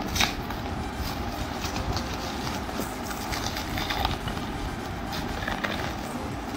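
Scattered clicks, taps and rustles of a plastic-wrapped sunglasses box being handled, over a steady low background rumble.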